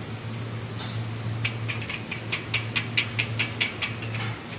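Quick run of sharp clicks, about five a second for roughly three seconds, as a hard, dried charcoal briquette is handled against the metal drying-rack tray, over a steady low hum.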